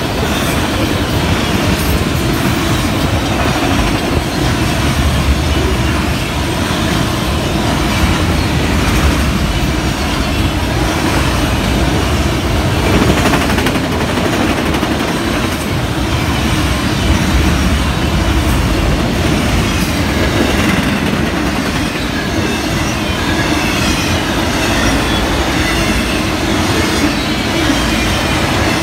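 Freight train of enclosed autorack cars rolling past close by at speed: a loud, steady rush of steel wheels on rail and rattling car bodies that holds on without a break.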